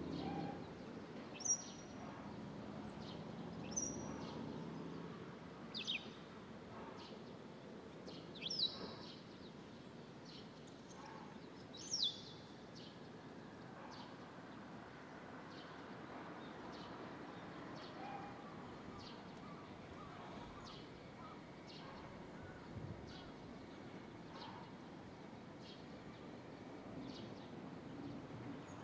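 Barn swallows chirping: short, sharp calls that fall in pitch. Several louder ones come in the first twelve seconds or so, then fainter ones about once a second, over a low steady background hum.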